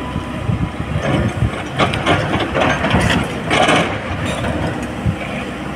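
SANY SY225 crawler excavator's diesel engine running steadily while the machine digs in broken rock, with short knocks and two louder bursts of scraping noise about two and three and a half seconds in as the bucket works the stone.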